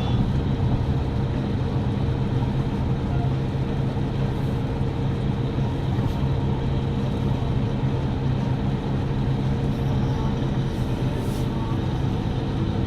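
A steady, low engine hum with no change in pitch.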